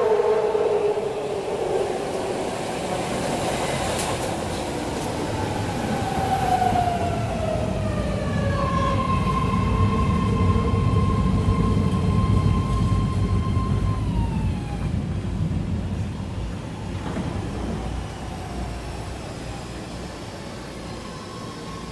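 Metro train running through a station: a low rumble with high squealing and whining tones that slide down in pitch. The rumble fades away over the last several seconds.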